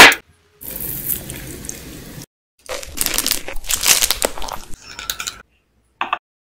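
Crunching and crinkling sounds of food preparation, in a sharp click followed by two longer stretches and a short burst, each starting and stopping abruptly.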